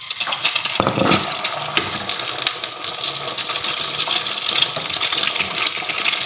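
An egg frying in hot oil on an onion pancake: loud, dense sizzling and crackling, with a brief dull knock about a second in.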